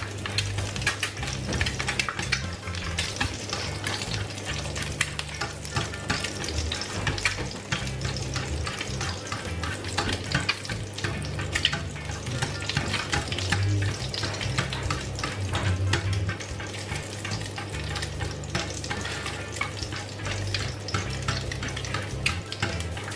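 An egg frying in oil in a non-stick pan, sizzling and crackling without a break as it is fried further, with a slotted spatula scraping and pushing at it. A steady low hum runs underneath.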